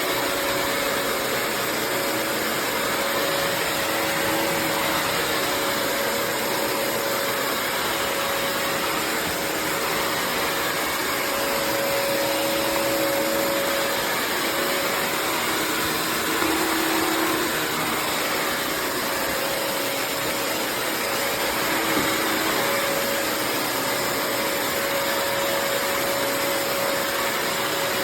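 Bissell CrossWave HydroSteam Pet wet-dry vacuum running steadily as it vacuums and mops a floor: an even rush of suction with a steady motor whine.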